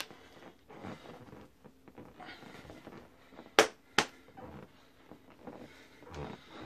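A person moving about on a floor with soft shuffling steps, and two sharp smacks about half a second apart near the middle, by far the loudest sounds.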